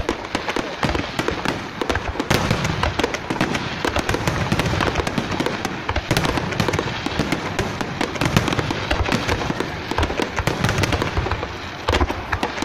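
Aerial firework shells bursting in a dense barrage: many reports overlapping in quick succession, with a brief lull shortly before the end.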